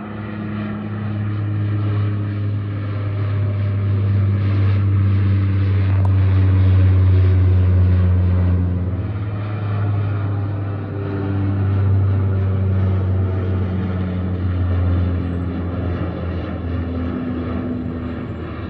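Departing airliner's engines at takeoff power, a steady roar with slowly bending engine tones that builds, is loudest about a third of the way in, and fades toward the end.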